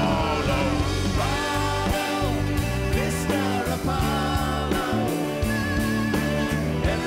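Live rock band playing, with drums, bass and acoustic guitar and a singing voice over them.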